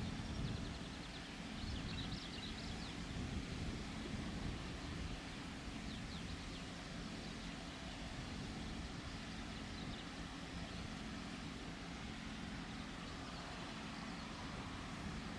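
A steady low rumble with a faint hum, and a few short, high bird chirps over it.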